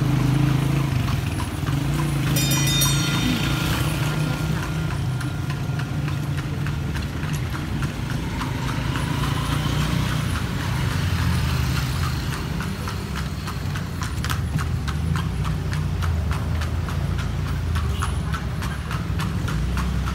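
A horse's hooves clip-clop on the paved street as a horse-drawn kalesa rolls along over a steady low rumble. The hoofbeats are clearest in the second half. A brief high-pitched squeal comes about two seconds in.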